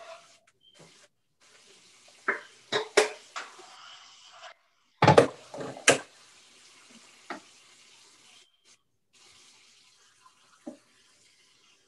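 Pots and utensils clattering and knocking during cooking, in a few quick clusters with the loudest about five seconds in, with a steady hiss like running water in between.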